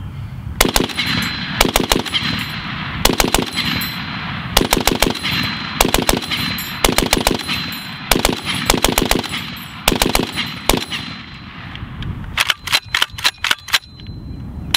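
Browning 1919A6 belt-fed machine gun in .30-06 firing full-auto in about ten short bursts of a few rounds each, spaced about a second apart, then one last burst near the end.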